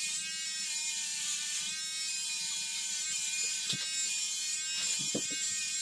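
Handheld electric shaver running with a steady buzz as it is moved over a freshly shaved scalp.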